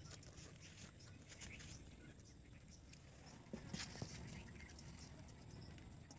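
Faint outdoor ambience with a steady high insect drone, and a few faint light clicks and rustles a little past the middle.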